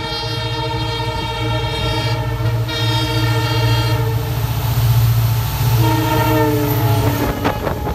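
Diesel locomotive approaching and passing at speed. Its multi-note horn sounds long for the first few seconds while the low engine rumble grows louder. A second horn blast drops in pitch as the locomotive goes past, followed by a few sharp wheel clacks over the rail joints.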